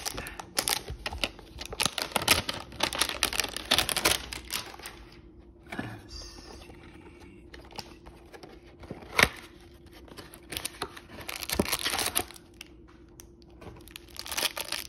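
Clear plastic wrapper crinkling and tearing as a trading-card box is unwrapped and opened by hand. The crackling is densest in the first four seconds and again around twelve seconds in, with one sharp click about nine seconds in.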